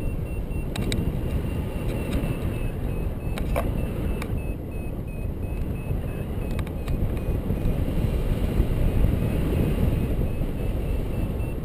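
Wind buffeting a pole-mounted action camera's microphone during a paraglider flight: a steady low rumble, with a few faint clicks.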